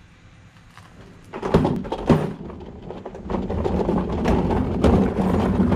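A mechanic's rolling seat set down on concrete with two thuds about a second and a half and two seconds in, followed by steady rumbling and irregular clicking as it is sat on and shifted about.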